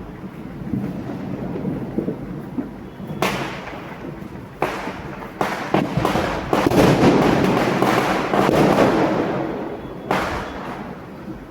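Diwali fireworks and firecrackers going off: sharp bangs that come more often from about three seconds in and build to a dense run of crackling in the middle, then a last bang near the end.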